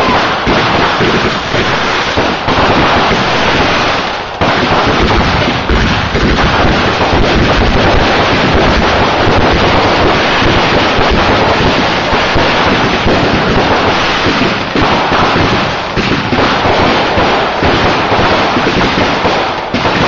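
Loud, continuous barrage of fireworks: many explosions and crackles running together with hardly a gap, easing briefly about four seconds in and again near sixteen seconds.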